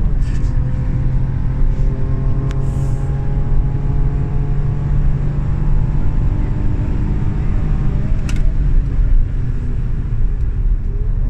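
Holden Commodore VXR engine running hard through a lap at racing pace, heard from inside the cabin over road and tyre noise, its note holding fairly steady with slight rises and falls in pitch. Two faint clicks are heard about two and a half seconds and eight seconds in.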